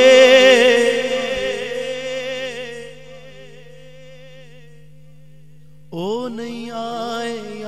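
Male naat reciter singing a Punjabi kalam. A long held note with wavering vibrato fades out about three seconds in, and a new phrase starts with a rising pitch about six seconds in, over a faint steady low drone.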